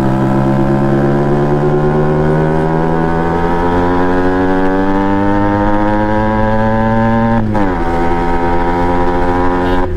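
Yamaha RX 135 two-stroke motorcycle engine running under way, its pitch climbing steadily for about seven seconds as it pulls. Then the pitch drops sharply and the engine runs on at a steady lower pitch.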